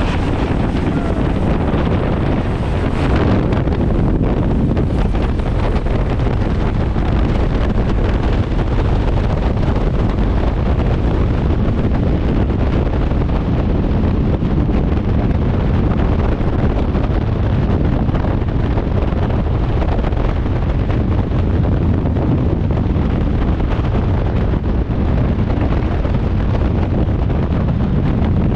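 Steady wind buffeting the microphone, a loud continuous low rumble.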